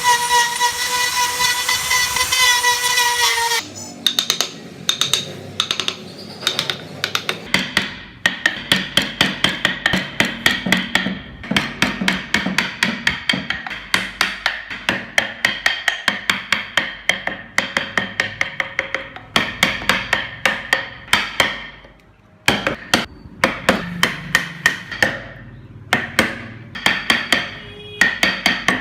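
A power tool runs at a steady high pitch for the first few seconds, then cuts off. Quick repeated hammer blows on a wood-carving job follow, several a second, in runs with short pauses between them.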